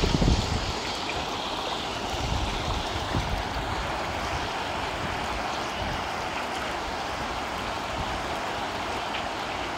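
The Ganga flowing fast over rocks: a steady rushing of river water, with a brief low rumble of wind on the microphone at the very start.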